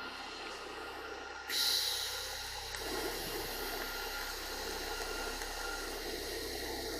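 Welding arc striking about a second and a half in and then hissing steadily as a full weld is run along a steel seam.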